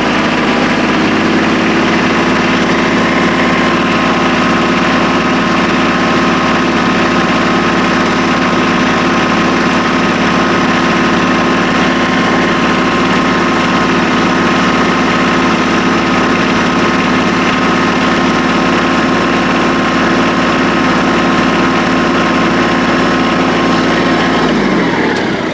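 Compact tractor engine running steadily at raised RPM, driving a Redlands 330 mini round baler through the PTO while it twine-wraps a bale. Near the end the pitch drops as the engine slows.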